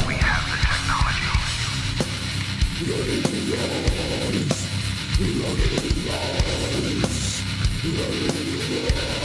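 Heavy metal music: distorted electric guitars over a steady, hard-hit drumbeat.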